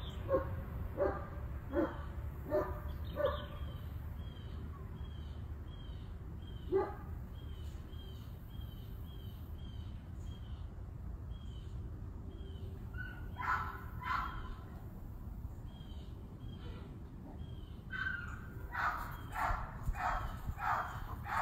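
A dog barking: a quick run of about five barks at the start and a single bark a few seconds later. Further on come two bursts of higher-pitched calls, all over a steady low rumble.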